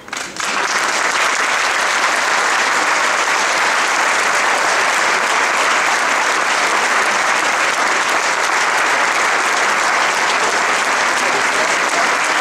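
Crowd applauding: clapping breaks out suddenly about half a second in and goes on steadily.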